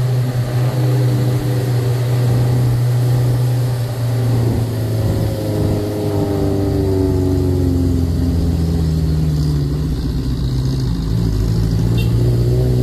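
Tour jeep's engine running hard up a steep mountain road. Its pitch slides down around the middle and then picks up again as it changes speed.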